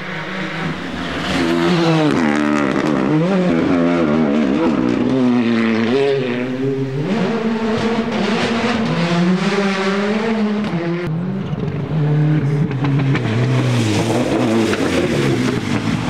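Rally car engines at full throttle, revving up and dropping back over and over through gear changes and lifts. The sound breaks off abruptly about eleven seconds in and picks up again with another car's engine.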